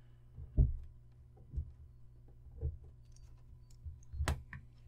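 Faint handling sounds as a power lead is plugged into an Arduino breadboard circuit: soft bumps about once a second and one sharp click near the end, over a low steady hum.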